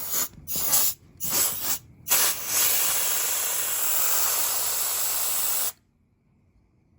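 Compressed-air duster blowing dust out of an opened Xbox One S: a few short hissing spurts, then one long steady blast of about three seconds that cuts off suddenly.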